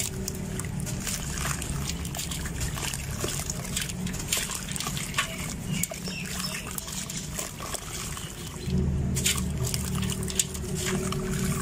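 Dry sand-cement chunks crushed and crumbled by hand: gritty crunching and crackling as grit and powder patter and trickle into a steel bowl of water. A low steady hum runs underneath.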